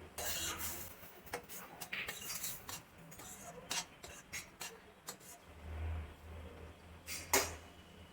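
A spoon stirring and scraping thick, reducing beetroot halwa in a cooking pan, with irregular clinks and scrapes. The loudest clink comes near the end.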